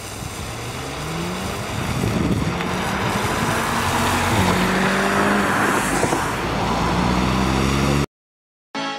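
Volkswagen Golf engine accelerating hard, its pitch rising in steps through the gears, over a hiss of tyres on wet asphalt that grows louder as the car passes close. The sound cuts off suddenly about eight seconds in.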